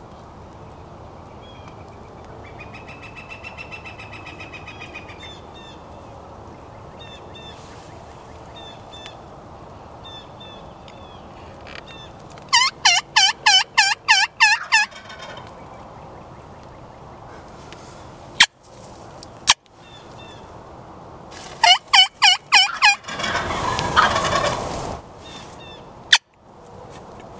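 Wild turkey calling: a quick series of about nine rising-and-falling notes about halfway through, and another near the end, followed by a louder, rougher call.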